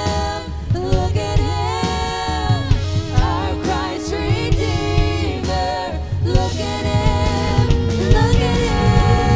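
Contemporary worship song performed live: a woman sings the lead melody into a microphone over a full band with drums and a steady bass line.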